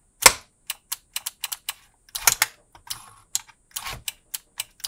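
Rapid, irregular sharp clicking as a momentary toggle switch is flicked over and over and the 5-pin Bosch-style relays it drives click on and off. The power window motor is held stalled in pliers and does not turn. The loudest click comes just after the start.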